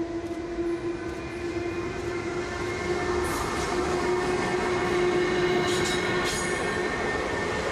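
EH500 electric locomotive hauling a high-speed container freight train passes close by. The rumble grows louder over the first few seconds as it arrives, over a steady electric whine.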